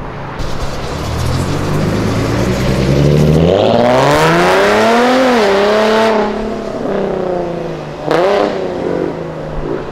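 Sports coupe's engine revving hard as it pulls away, the pitch climbing steeply for a couple of seconds about four seconds in, dipping briefly, then easing off. A short sharp rev follows near the end.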